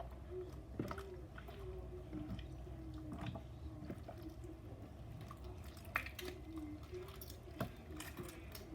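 Wet homemade white-glue slime being squished and worked by hand: soft squelching with a few sharp sticky clicks and pops.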